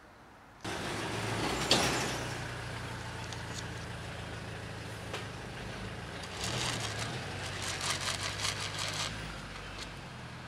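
A motor vehicle engine running with a steady low hum. There is a short, sharp hiss just under two seconds in, and a run of rapid clicks and rattles in the second half.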